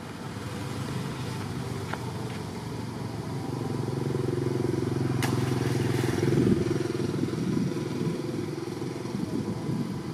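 An engine running, growing louder to a peak about six seconds in, then fading, with a single sharp click about five seconds in.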